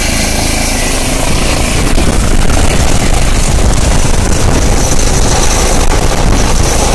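Eurocopter EC135 helicopter on the ground with its main rotor turning, its engines and rotor winding up for take-off. The roar grows louder about a second in and stays loud.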